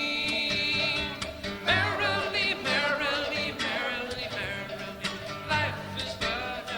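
Live acoustic folk music: a plucked guitar accompanies a wavering melody line with vibrato and no words.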